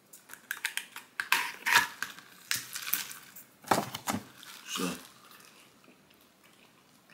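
Plastic drinking straw being unwrapped and jabbed down through the snap-on plastic lid of a fast-food drink cup: a string of crinkles, clicks and plastic crackles, the loudest about four and five seconds in.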